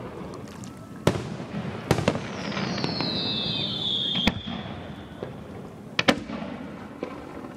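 Aerial fireworks bursting: a series of sharp bangs, with a whistle that slides down in pitch for a couple of seconds midway.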